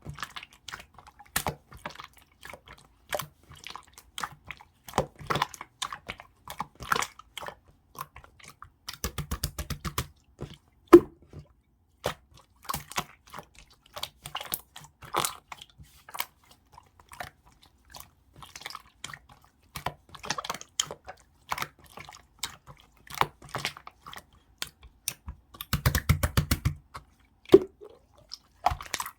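Clear slime being squished and pressed by hand, making a string of clicks and pops, with two quick rapid runs of clicks about nine seconds in and again near the end.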